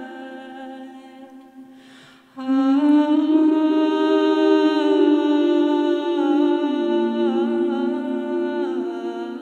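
A woman singing long wordless notes into a microphone. A breath is drawn about two seconds in, then a loud held note begins, and the pitch steps down a few times near the end.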